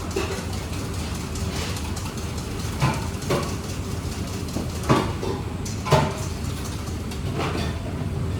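Kitchen prep: utensils and containers knocked and set down on a work counter, a handful of short clatters a second or two apart, over a steady low hum.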